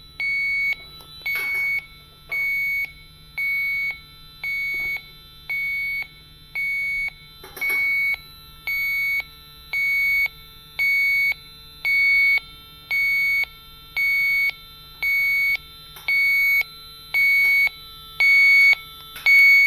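Electronic beeper sounding a steady high-pitched beep about once a second, each beep about half a second long, over a faint low hum.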